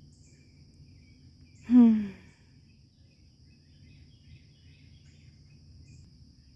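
Steady high-pitched insect drone of crickets, with faint bird chirps. About two seconds in, a person gives a short sigh falling in pitch.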